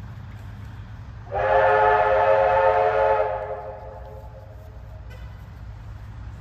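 Steam locomotive whistle sounding one blast of about two seconds, starting a little over a second in, then fading away. A steady low rumble runs underneath.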